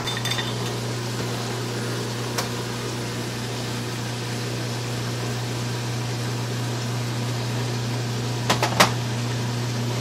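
Steady low hum with fan-like noise from a running kitchen appliance. A couple of light glassy knocks come near the end as the glass bottle is set down on the enamel stovetop.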